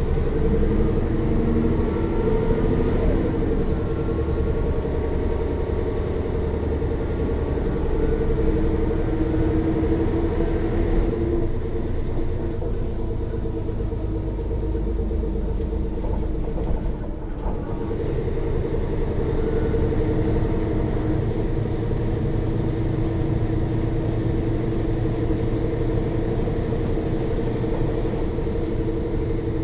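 Mercedes-Benz O 405 N1 city bus heard from the passenger cabin while under way: the loud diesel engine drones steadily over the whine of the rear axle's final drive, and the quiet transmission is hardly heard. The pitch climbs in the first few seconds, and a little past halfway the sound dips briefly with a single knock.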